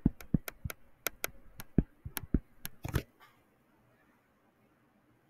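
A stylus tapping on a screen while handwriting: about a dozen quick, uneven taps over three seconds, then they stop.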